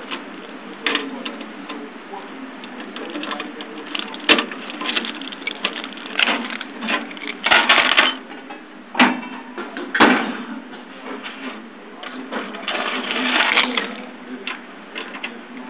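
Sharp metallic clicks and rattles of a bunch of keys being handled and a key worked into the lock of a metal desk drawer, with a quick run of clicks a little before halfway and another near the end, over a steady rustle from handling the phone.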